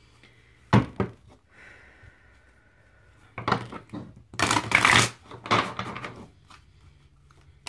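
A deck of Enchanted Map oracle cards shuffled by hand: a couple of sharp taps about a second in, then a few seconds of rustling, flapping card noise near the middle, loudest toward the end of it.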